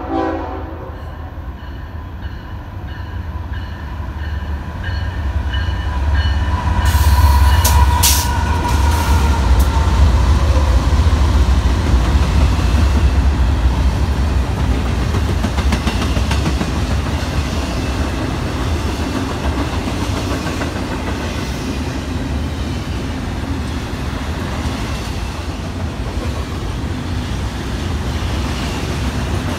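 Train passing close by: a horn blast ends just as the sound begins and a bell rings repeatedly over the first several seconds. The deep rumble of the locomotive builds to its loudest about seven seconds in, and the rail cars follow with a steady rumble and wheel clatter.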